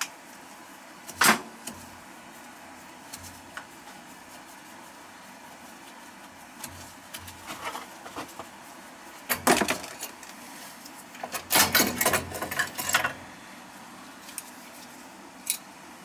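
Clicks, knocks and rattles of hands removing the round air-intake cover from a Riello oil burner, a hard plastic and metal part. One sharp knock comes about a second in, then scattered clicks, with bursts of rattling in the middle and a longer run of rattling in the second half.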